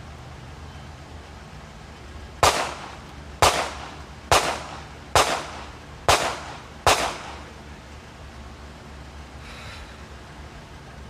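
Six gunshots fired at a steady pace of about one per second, each a sharp crack with a short echoing tail.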